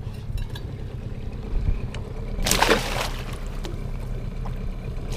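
Water splashing once, about two and a half seconds in, over a steady low rumble.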